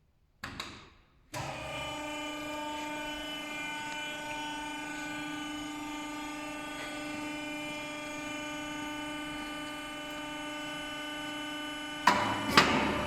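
Log cross-cut machine with an electric-motor-driven harvester saw chain running on its bar, a steady even whine that starts about a second in. Near the end it gets louder, with several sharp knocks.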